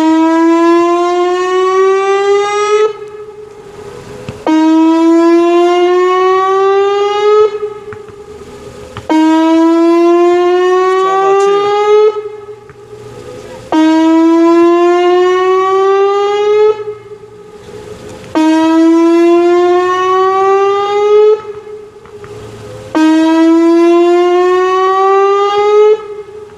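Whelen WPS 2810 electronic outdoor warning siren sounding its test: a loud tone, slowly rising in pitch, lasting about three seconds and coming around six times, about every four and a half seconds, with quieter gaps between as the rotating speaker head turns away.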